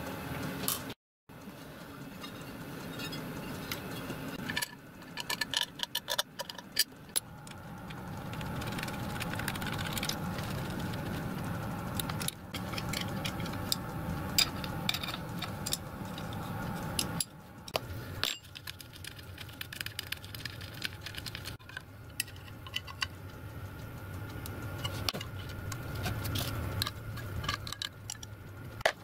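Small steel parts, screws and hand tools clinking and tapping against metal as they are handled and fitted, over a steady low hum. The sound breaks off and changes abruptly several times.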